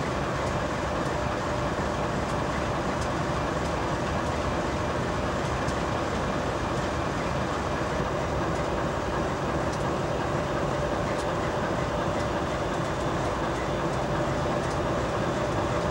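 GE Dash 9-40CW diesel-electric locomotive running steadily at close range: an even, unbroken engine drone with a faint steady hum in it.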